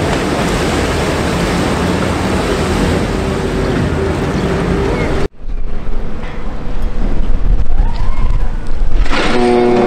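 Amphibious bridging vehicle's engine running as it drives into a river, with a loud, even noise of water and wind. After a sudden cut there is an uneven rumble, and near the end a ship's horn starts to sound, one steady low blast.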